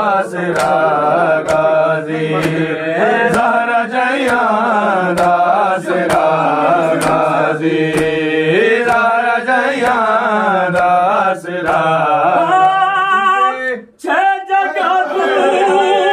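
Men chanting a Shia nauha (lament) together in a slow, wavering melody over a low held drone. Sharp slaps of chest-beating (matam) keep time about twice a second. Near the end one higher voice with a wavering pitch stands out, and the singing breaks off briefly before resuming.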